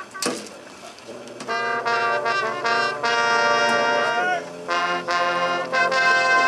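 High-school marching band's brass section playing loud sustained chords, coming in about a second and a half in after a single sharp hit near the start. The chords break off briefly twice and come back in.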